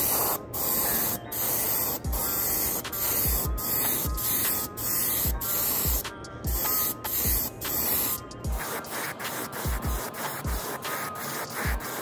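Airbrush spraying silver base coat onto a lure body in short repeated bursts of hiss, a little under a second apart, stopping about eight seconds in.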